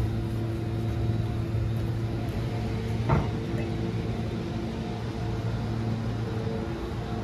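Train idling with a steady, low engine hum, and one short knock about three seconds in.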